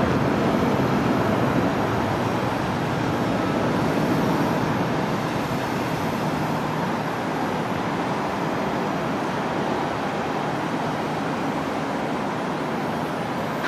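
Jet noise from a Boeing 777's two GE90-85B turbofan engines after takeoff: a steady rush that slowly fades as the airliner climbs away.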